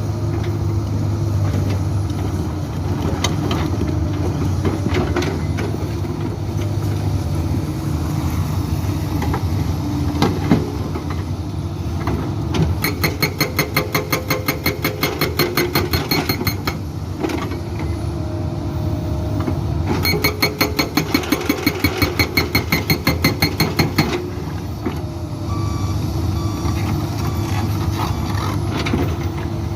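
Diesel engine of a Komatsu PC200-8 excavator running steadily, with a few single knocks. Twice it is joined by a Soosan SB81 hydraulic breaker hammering rock in a rapid, even run of blows, each lasting about four seconds: first a little before halfway, then again about two-thirds of the way in.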